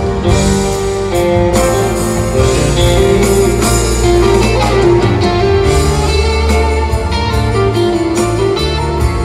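Live rock band playing an instrumental passage: an electric guitar melody over drums, bass and keyboards, with regular drum hits.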